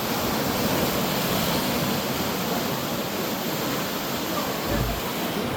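Sea waves breaking and washing on the shore, a continuous rushing surf. A brief low thump comes near the end.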